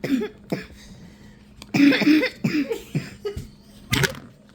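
A girl coughing hard in repeated fits of coughs, the strongest about two seconds in.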